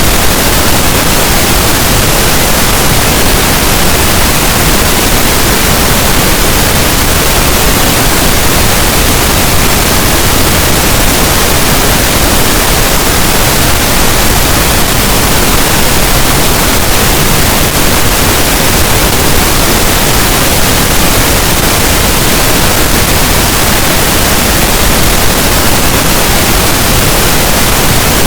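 Pink noise: a steady, loud, unchanging hiss that spreads evenly across all pitches, with no breaks or events.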